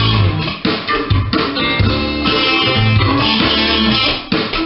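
Gibson electric guitar improvising over a backing track with bass and drums.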